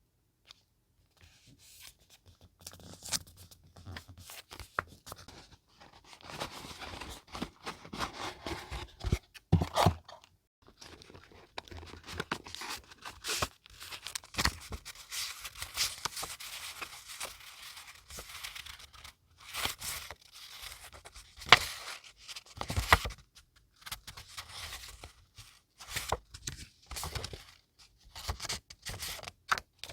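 Paper being handled close to the microphone: crinkling, scraping and tearing in uneven bursts, with many sharp taps and clicks, starting about a second in.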